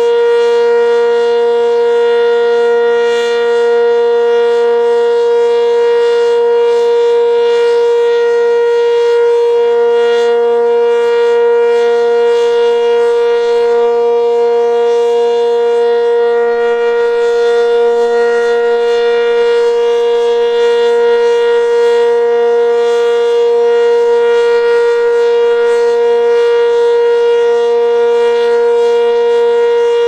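ACA Cyclone 120 mechanical civil-defense siren sounding its steady alert tone at full speed, one loud unwavering pitch with no rise or fall. The siren is wired in reverse, yet still sounds loud.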